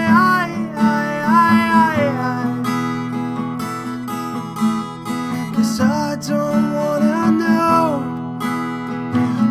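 Music: strummed acoustic guitar with a sliding, wordless melody line over it.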